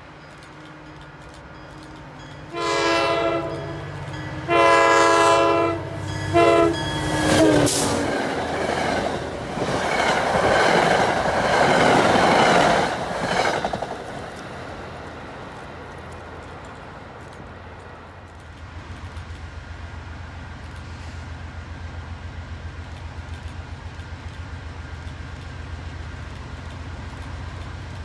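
Approaching Norfolk Southern freight train's locomotive horn sounding two long blasts and a short one. A rushing noise then swells and fades over about six seconds. After that comes the low, rhythmically pulsing rumble of the diesel locomotives and wheels drawing closer.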